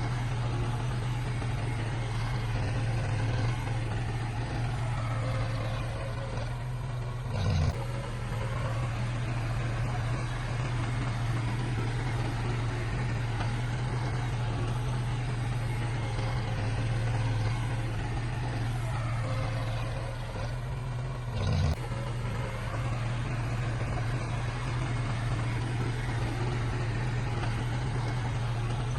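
Heavy diesel engine of earthmoving machinery running steadily under load, with a short sharp knock about eight seconds in and again about twenty-two seconds in.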